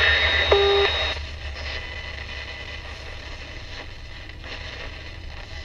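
GE P975F transistor radio playing on the AM band through its speaker: a station's audio with a steady high whistle cuts off about a second in, leaving only hiss over a low hum.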